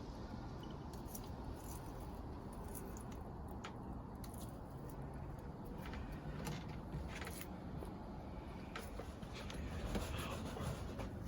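Garden plants being handled during harvesting: scattered light clicks and snaps with rustling, over a steady low rumble.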